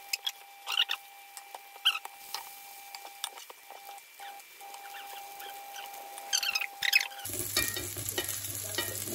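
Wooden spatulas scraping and tapping in a non-stick frying pan as small patties of grated-vegetable mixture are pushed into shape in shallow oil, with a light sizzle. The scrapes come in scattered clicks, with a busier run near the end, over a faint steady whine.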